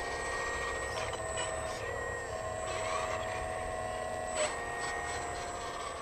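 Hydraulic pump of an RC model Liebherr 946 excavator whining steadily as it digs, its pitch stepping a few times as the arm and bucket move; wind rumbles on the microphone.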